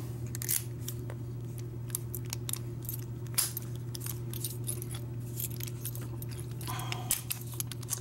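A bunch of keys on a ring jangling and clicking against a steel padlock as it is handled, in many short, irregular clicks over a steady low hum.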